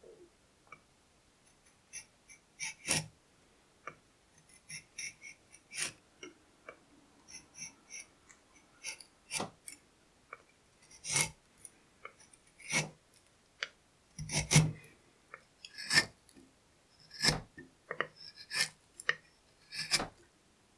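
Sharp chisel paring thin curled shavings off an ash wood stick: a series of short slicing, scraping strokes at irregular intervals, about one a second or faster, the loudest about two-thirds of the way through.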